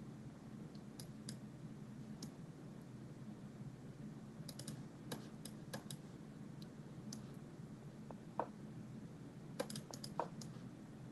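Faint, scattered clicking at a computer, with a quick run of clicks about halfway through and another near the end, over a faint steady low hum.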